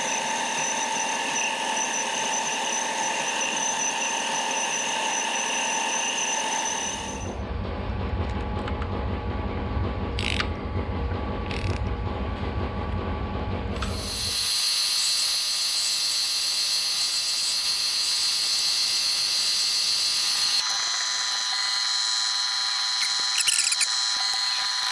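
Manual milling machine running, its spindle cutting out a hole in a steel block and then boring it to size with a boring head. The running sound changes abruptly about a third of the way in and again about halfway.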